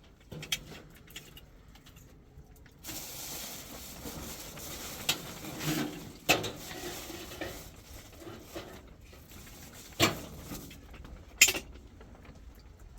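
Kitchen sounds: a steady hiss lasting about eight seconds, with a few sharp clinks and knocks of utensils against pots or dishes.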